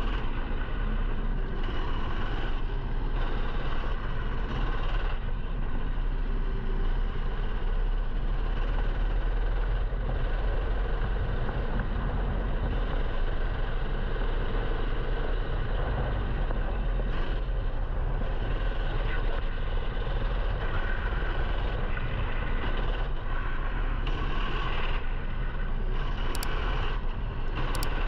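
Rental kart's 13 hp single-cylinder four-stroke engine running at a steady pitch, heard from an onboard camera under heavy wind rumble.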